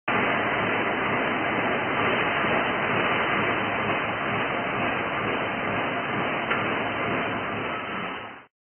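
Steady rushing background noise with no distinct tones, cutting in suddenly and fading out near the end, with one faint click about six and a half seconds in.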